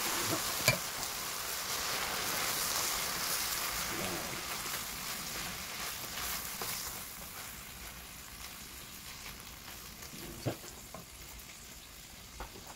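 Minced beef and onion sizzling in a frying pan as tomato sauce is poured in and stirred with a wooden spoon. The sizzle is loudest at first and fades gradually, with a sharp knock about a second in and another, smaller one near the end.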